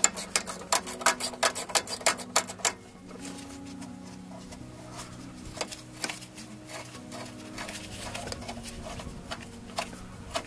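Ratcheting box-end wrench clicking in quick strokes as it loosens a 10 mm bolt. The rapid clicking stops about three seconds in, and slower, scattered clicks follow over a low background hum.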